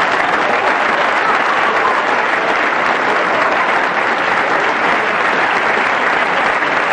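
Audience applause, a steady dense clapping that cuts off abruptly at the very end.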